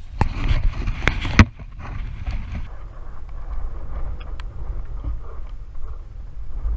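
Knocks and clicks of a handheld action camera being handled, the loudest about a second and a half in, then a steady low rumble.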